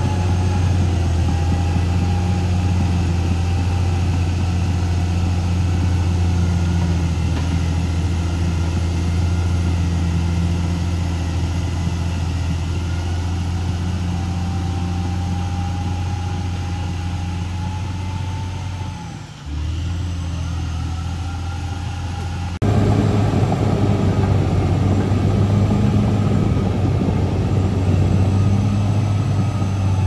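Caterpillar D6R XL crawler bulldozer's diesel engine running steadily as the dozer works the dirt track. The drone dips briefly about two-thirds of the way in, then jumps abruptly louder a few seconds later.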